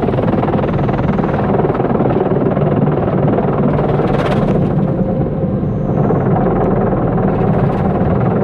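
Sound effect of a gantry car wash running: a steady, loud mechanical rumble under a rushing noise, with a brief brighter hiss about four seconds in.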